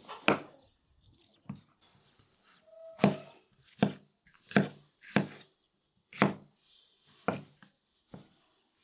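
Large kitchen knife slicing a bell pepper into strips on a wooden cutting board: about nine separate cuts at uneven spacing, each ending in a sharp knock of the blade on the board.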